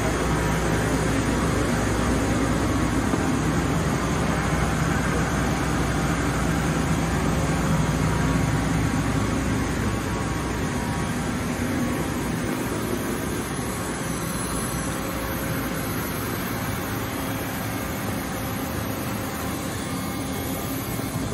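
Steady hum and whir of a powered-up CNC horizontal machining center and its auxiliary units, such as cabinet cooling fans and the coolant system, running at idle. The low hum eases off a little about halfway through.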